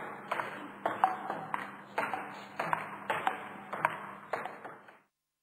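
Table tennis rally: a celluloid ping-pong ball clicking off paddles and the table in a quick, uneven run of hits, about three a second, over a faint steady hum. It stops abruptly about five seconds in.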